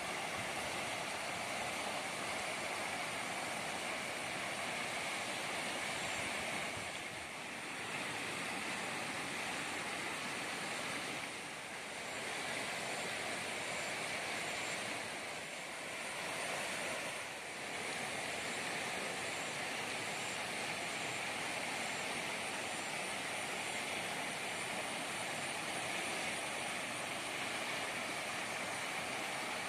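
Steady rush of a swollen river running fast in flood, dipping briefly in level a few times.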